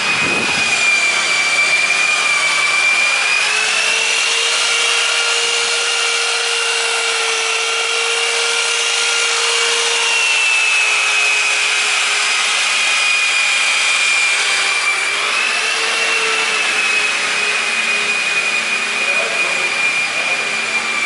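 A motor-driven workshop machine running steadily with a high whine over a loud hiss; the pitch drifts slightly up and down. There is a single knock right at the start.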